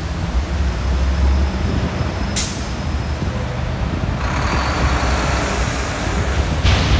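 City street traffic: heavy vehicle engines rumbling low and steady, with a short sharp air-brake hiss about two and a half seconds in. A longer hiss of passing traffic follows from about four seconds in.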